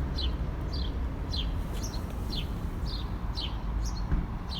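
A small songbird chirping repeatedly, short falling notes about two a second, over a steady low rumble.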